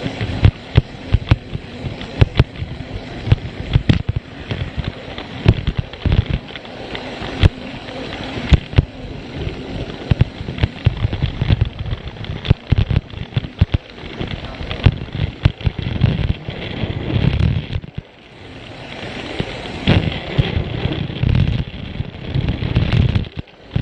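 Plarail toy train running over plastic track, heard from a camera riding on it: a steady motor whir and rattle broken by frequent irregular sharp clicks and clacks from the track joints.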